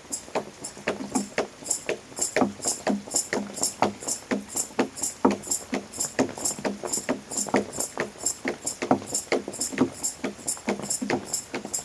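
Music with a steady, even beat of sharp struck notes, about three a second, and a light high ticking on top.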